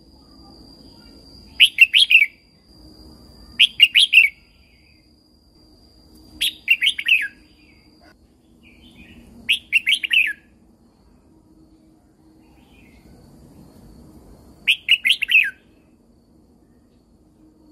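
Red-whiskered bulbul singing: five short, loud phrases of a few quick notes each, with pauses of two to four seconds between them. A thin steady high tone runs under the first three phrases and stops about halfway through.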